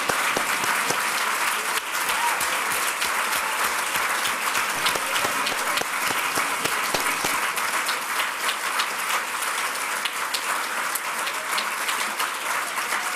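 A large audience applauding with steady, even clapping of many hands, the ovation at the close of a speech.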